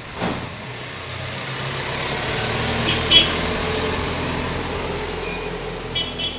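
A motor vehicle passing by: a broad running noise that swells over a couple of seconds and fades away. A few sharp clicks of metal engine parts being handled land over it, the loudest about three seconds in and two more near the end.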